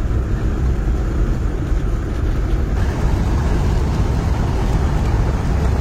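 Steady low rumble of a vehicle driving along a highway: engine and road noise with no distinct events.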